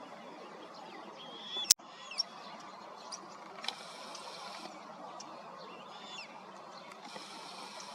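Small birds giving short high chirps and whistles over a steady outdoor background, with a buzzy high hiss twice, each lasting about a second. A single sharp click sounds about a second and a half in.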